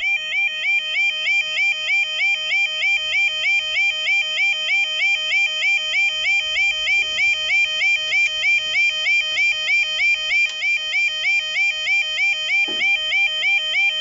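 Level crossing yodel alarm warbling in quick rising sweeps, about three a second, while the road barriers lower: the warning of an approaching train.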